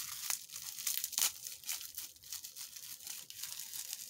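Packaging being crinkled and torn open by hand during an unboxing: a run of irregular crackles and rustles.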